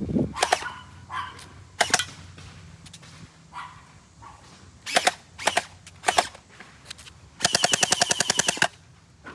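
Gel blaster firing: a handful of single sharp shots spread a second or more apart, then a rapid full-auto burst of about fifteen shots a second lasting just over a second near the end.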